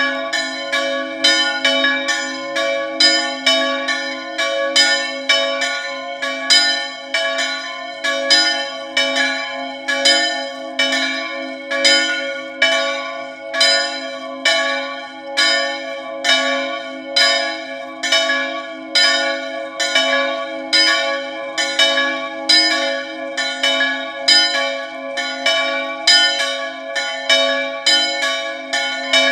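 Two swinging church bells, the D4 bell cast by Pasquale Marinelli of Agnone and the F4 bell by Peppino Mari, ringing a festive full-swing peal. Their clapper strokes interleave in an even rhythm and keep ringing over one another. Only the two smaller bells sound, because the largest bell's motor is broken.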